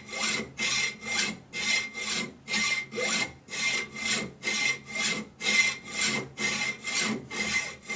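A dull hand hacksaw cutting through a metal part in long, even strokes, about two a second, with a thin ringing tone through each stroke.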